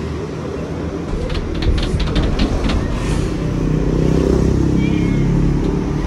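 Street traffic: a motor vehicle engine running close by, growing louder from about four seconds in, with a quick run of light clicks between one and three seconds in.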